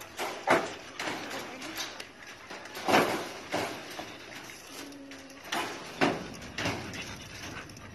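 A dog barking: about seven short, sharp barks at irregular intervals.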